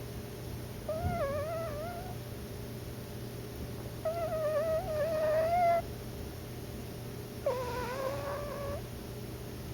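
Sleeping cat snoring: three whistling, wavering snores about three seconds apart, each lasting a second or two.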